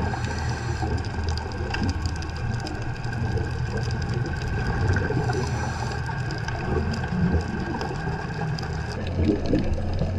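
Steady underwater motor hum from a boat engine heard through the water, under a haze of water noise with scattered faint clicks.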